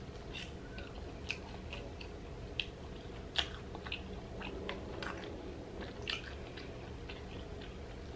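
A person chewing a mouthful of braised lamb dipped in tzatziki sauce, with irregular short wet clicks from the mouth.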